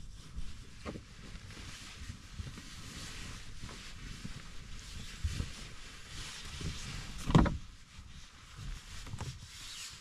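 Blanket and clothing rustling as a person shifts about on a padded van bed, with small bumps throughout and one loud thump about seven seconds in.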